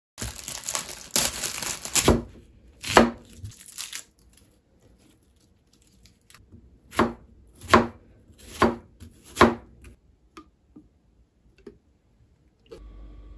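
An onion being peeled by hand, its dry papery skin crackling and tearing, then four evenly spaced sharp strokes on a cutting board, typical of chopping. A steady low hum comes in near the end.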